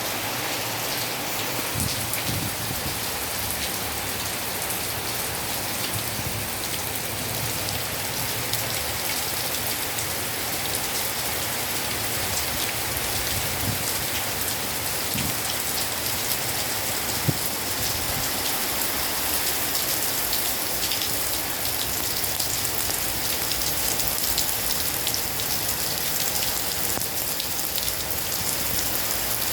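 Heavy rain pouring down steadily: a dense, even hiss of rain with many fine drop ticks.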